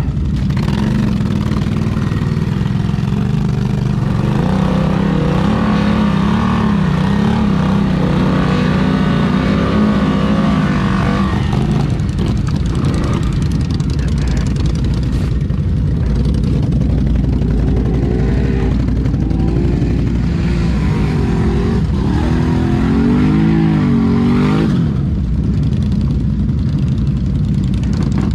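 ATV engine running hard, its pitch rising and falling again and again over two long stretches of revving, over a steady low rumble.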